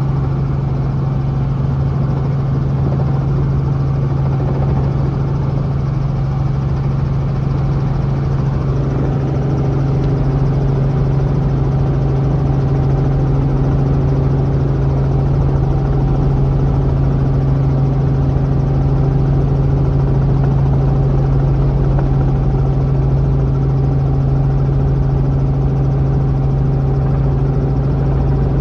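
Robinson R44 helicopter running, a loud steady low hum of engine and rotors heard from inside the cabin, growing a little louder and fuller from about nine seconds in.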